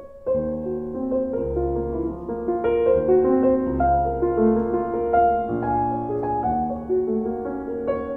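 Recorded solo piano music: a melody of single notes over held bass notes.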